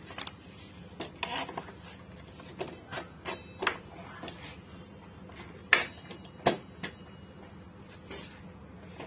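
Irregular knocks, clicks and scraping from hand work on a motorcycle's front wheel and fork, with two sharper knocks about six seconds in, over a low steady hum.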